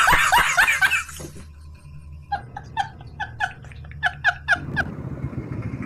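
A man laughing hard in quick ha-ha bursts that fall in pitch, breaking off about a second in. A string of short, high, squeaky wheezing laughs follows, about four a second. Near the end the steady engine and road noise of a moving motorcycle takes over.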